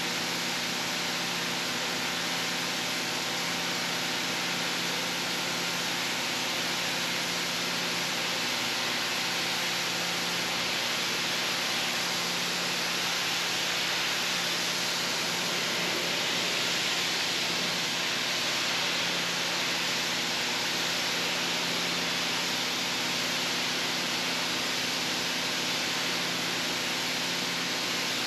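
Rug-cleaning machinery running: a steady rushing hiss over a low motor hum, slightly louder about halfway through.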